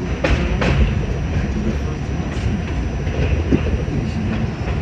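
R68 subway car running on elevated track, heard from inside the car: a steady low rumble of wheels and running gear, with two sharp clicks less than a second in.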